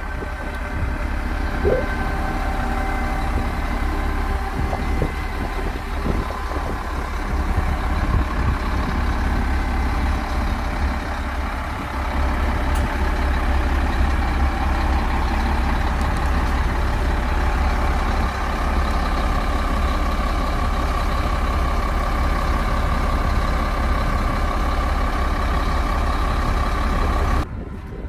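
Heavy diesel engines of SD300N wheel loaders running and working with a steady low rumble. The rumble gets louder about halfway through and cuts off abruptly near the end.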